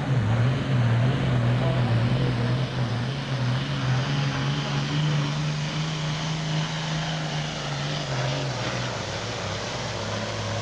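Heavy diesel super stock pulling tractor's engine running at full power under load during a pull, black-smoking. It makes a steady low drone that drops lower in pitch about eight and a half seconds in.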